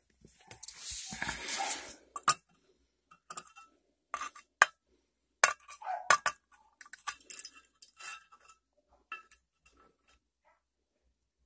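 Scattered sharp clinks and taps of a steel knife blade against the rusty tin lid of a glass preserve jar, after about a second and a half of rustling handling noise near the start.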